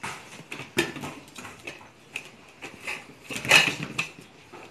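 Aluminium pressure cooker lid being twisted open and lifted off the pot, with scattered metal clicks and knocks and a louder clatter about three and a half seconds in. The pressure has already been released.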